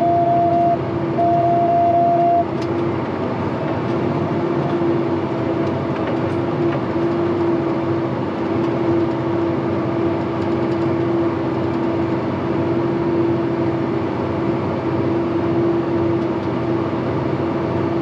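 Farm tractor running with a steady, even engine drone while it pulls a corn planter. In the first couple of seconds an electronic alarm sounds two long, steady beeps; this is the planter's fertilizer detection system, which alerts when it detects no fertilizer flow.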